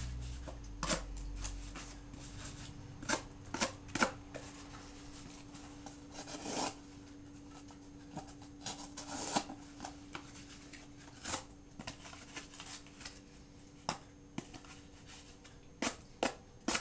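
Benchmade 615 Mini-Rukus folding knife's S30V blade slicing cardboard boxes: irregular scrapes and rasps, with sharp clicks and rustles as the cardboard is handled. A faint steady hum sits underneath.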